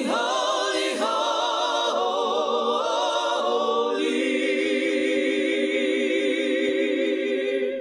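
Choir-like voices singing held chords with vibrato, moving to a new chord every second or so, then holding one long chord through the second half.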